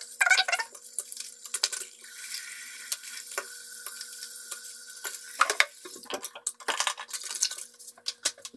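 Makeup brushes clattering in a sink basin as they are put in to soak, their handles clicking against the basin and each other. Water runs into the sink with an even rush for about three seconds in the middle.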